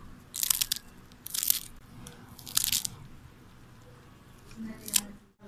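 Crisp fried chicken crunching: three short crunches about a second apart, then a single click near the end.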